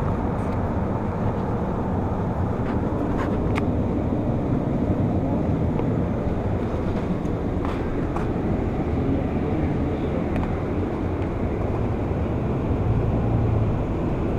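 Scania Citywide LF city bus running, heard inside the passenger cabin: a steady low rumble that grows a little louder near the end, with a few light clicks in the first half.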